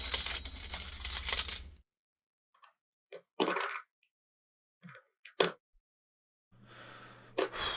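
Coins clinking and jingling for about two seconds as money is handed over, then a few short taps and one sharp click about five and a half seconds in.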